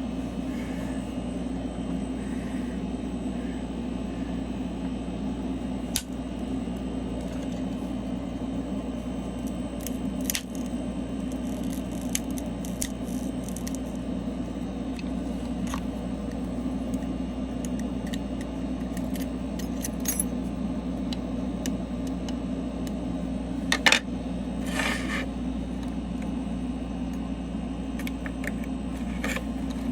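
A steady low mechanical hum with scattered small clicks and light taps of tools and parts being handled, the sharpest a little after twenty seconds in.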